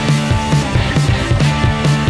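Background rock music with a steady drum beat and a heavy, sustained bass line.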